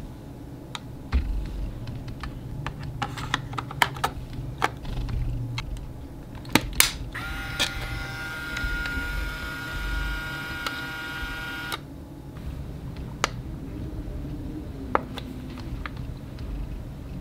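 Clicks and taps of an Instax Mini Link printer and its film pack being handled. About six and a half seconds in come two sharp clicks, then the printer's motor gives a steady whine for about four seconds and stops abruptly, typical of the printer ejecting the film pack's black cover after loading.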